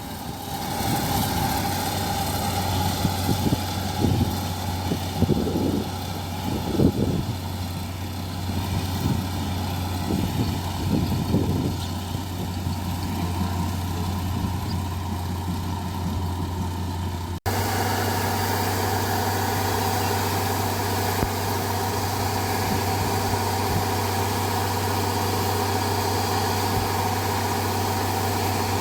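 Combine rice harvester's engine running steadily, with irregular louder surges in the first half. About two-thirds through the sound changes abruptly to a steadier, more even engine drone.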